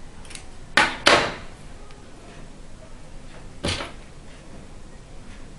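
Hands handling macramé cords on the pinned work cushion: three short brushing sounds, two close together about a second in, the second the loudest, and a weaker one near four seconds in.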